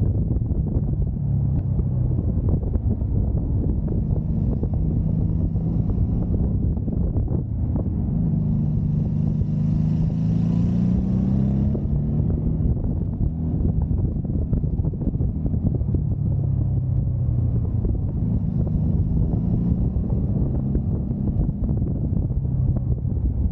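Honda Magna V4 motorcycle engine running under way. Its pitch rises for a few seconds near the middle, then drops back and holds steady, with wind noise over the microphone.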